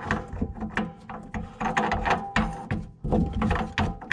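A plastic faucet mounting nut being spun up the faucet's threaded shank by hand, giving a quick, uneven run of clicking, ratchet-like ticks.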